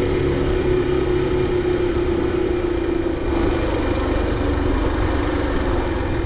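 Motorcycle engine running at a steady pitch while riding, with a heavy low rumble underneath.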